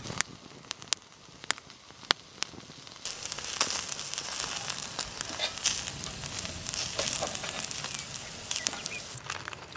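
Wood fire crackling with sharp pops. About three seconds in it gets louder, with a denser crackle and sizzle from meat roasting on a spit over the glowing coals.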